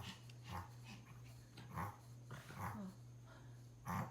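Small Pomeranian giving about four soft, quiet barks, low grumbling woofs a second or so apart, as it alerts at something it sees outside.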